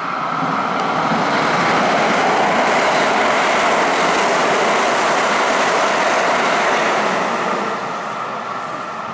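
Kintetsu limited express electric train passing through the station at speed, a loud rushing rumble of wheels on rail. It swells over the first second or two, holds, then drops away suddenly near the end.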